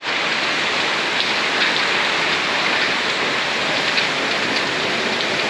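Heavy tropical downpour falling steadily on a screened pool enclosure, the paved pool deck and the pool.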